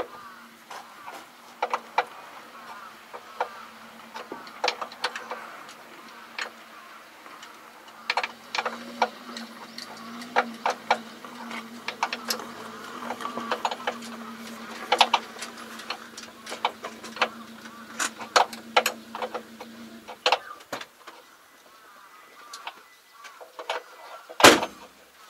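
Hand tools clinking and knocking on steel parts of a crawler track during a repair, in scattered sharp clicks with one loud clang near the end. A steady low hum runs underneath and stops about four-fifths of the way in.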